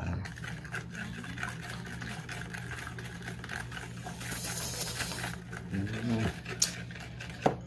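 A metal spoon stirring a thin sauce in a ceramic bowl, clinking quickly and repeatedly against the bowl, over a steady low hum.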